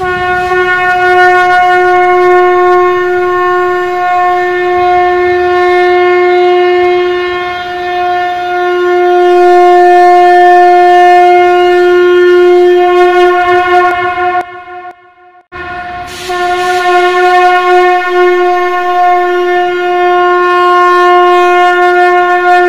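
Conch shell (shankh) blown in a long, loud, steady blast on one held note. It breaks off for about a second around fourteen seconds in, then a second long blast follows.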